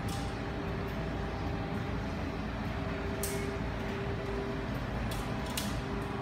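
Steady low rumble and hum of running laundromat machines, with a few short sharp clicks about three and five seconds in.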